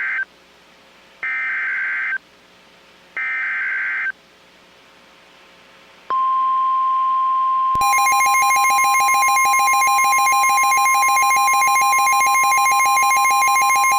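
Weather radio emergency alert header: three short warbling data bursts about a second apart (the SAME code bursts), then the steady weather radio warning alarm tone starting about six seconds in. Near eight seconds a louder, harsher buzzing alert tone joins it, and both keep sounding. This tone sequence signals that a warning message is about to be read.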